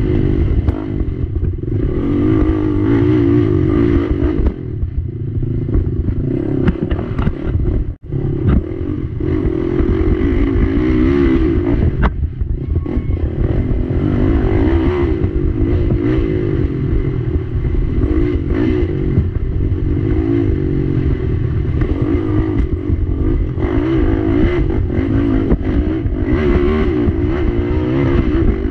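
Race ATV engine at full effort, its pitch rising and falling as the throttle is worked over rough dirt trail. Clatter and knocks from the quad's chassis and suspension over the bumps come through on top.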